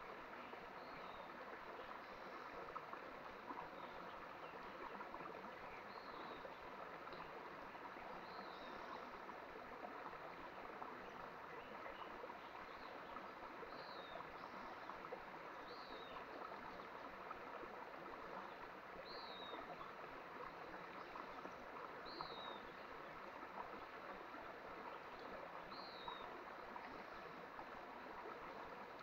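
Mountain stream flowing steadily, with a bird repeating a short, falling call every few seconds.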